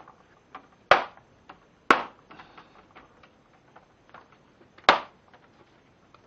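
Metal sockets being pushed hard and snapping into a plastic tool-kit tray: three sharp clicks, about a second in, two seconds in and near the five-second mark, with fainter ticks of handling between.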